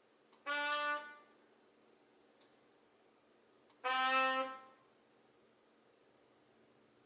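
Two single notes from a sampled wind instrument in beat-making software, each about a second long and fading out, the second a little lower; each is triggered by a mouse click, with another lone click between them.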